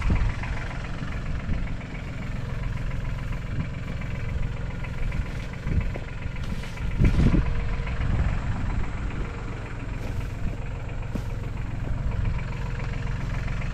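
New Holland TC33's three-cylinder diesel tractor engine idling steadily, its rototiller not engaged, with a brief louder burst of noise about seven seconds in.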